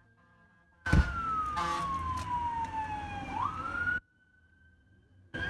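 Emergency vehicle siren wailing, its single tone sliding slowly down in pitch and then quickly back up. About a second in there is a sharp thump and the background gets louder, then drops back abruptly at four seconds.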